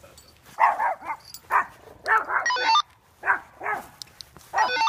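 A dog barking in a run of about six or seven short barks at uneven intervals.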